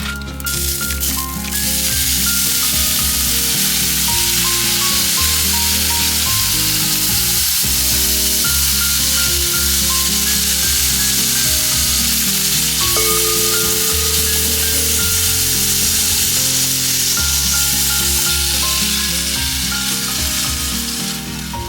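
Food sizzling as it fries in a hot pan. The sizzle jumps louder about a second and a half in and eases off near the end.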